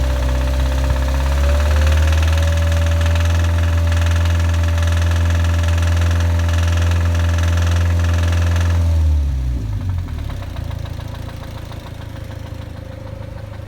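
2006 Mazda MX-5 Miata (NC) engine idling with a knocking noise that the owner suspects comes from the variable valve timing (VVT) actuator. The engine speed rises slightly about a second and a half in, and about nine seconds in the engine is switched off and runs down, leaving a quieter steady hum.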